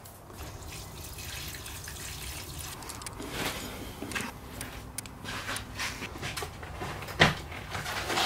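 Petrol being poured from a can into a small dirt bike's fuel tank, a steady liquid pouring sound, followed by light clicks of hands working at the fuel tap and carburettor. A sharp knock about seven seconds in.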